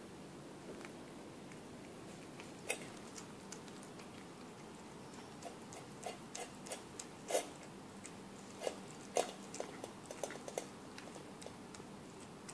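A cat chewing and licking wet food from a stainless-steel bowl: irregular small clicks and smacks, sparse at first and coming thick and fast in the second half.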